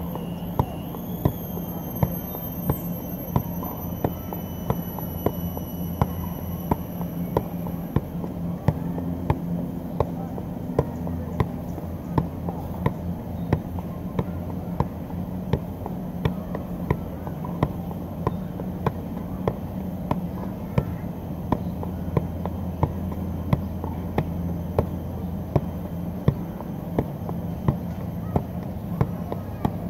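Soccer ball being juggled on the feet: a steady, even run of kicks, about one and a half a second, over a low steady hum.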